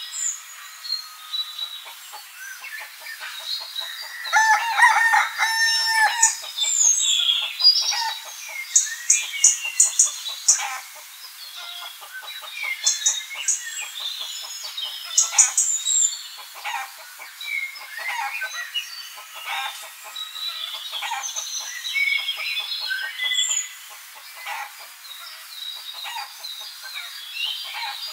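A flock of hens clucking, with one long crowing call about five seconds in and small birds chirping.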